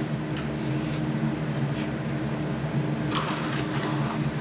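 A trowel scraping and smoothing deck mud in short, uneven rasping strokes while the mortar bed is worked to a slope, the clearest stroke about three seconds in. A steady low machine hum runs underneath.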